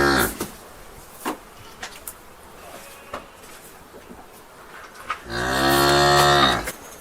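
Cattle in a barn mooing: the tail of one moo fades out at the start, then a single long moo comes about five seconds in. In the quieter stretch between them, faint barn ambience with a few scattered knocks and clicks.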